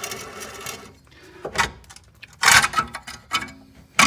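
Hand work on a car's front wheel hub and suspension: a few short metallic knocks, clanks and scrapes as the parts are moved, the loudest about two and a half seconds in.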